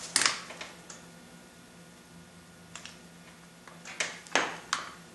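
A few light clicks and taps of small glue-pull dent repair parts being handled on a car door panel, as a glue tab sits on the dent and a puller is brought over it. There is one click near the start and a quick cluster of clicks near the end.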